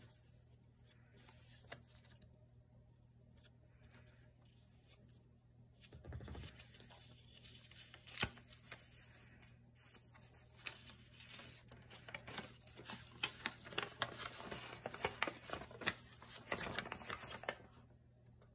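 A small folded paper zine being handled: pages flipped with light clicks and rustles and one sharper snap partway through. Near the end comes a longer stretch of dense paper crinkling as the zine is unfolded into one large sheet.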